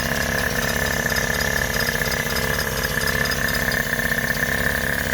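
Datsun L20B four-cylinder engine, freshly fitted with a Weber 32/36 DGEV carburettor, idling steadily with a fast, even pulse and a steady high whine over it.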